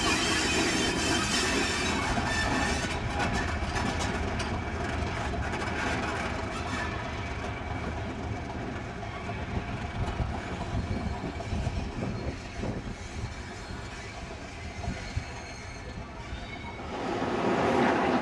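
Passenger train moving slowly round a curve over pointwork: steel wheels squealing against the rails and clicking over rail joints, fading as the train draws away. Near the end a louder rush of train noise comes in as a steam locomotive approaches.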